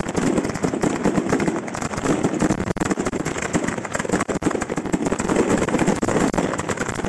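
Fireworks display firing without let-up: a dense rattle of rapid bangs and crackling from ground fountains, comets and bursting stars.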